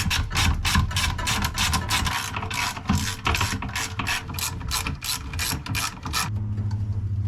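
Ratchet wrench clicking rapidly, about five clicks a second, as a fastener is turned during pool pump motor reassembly. Near the end the clicking stops and a steady low hum begins.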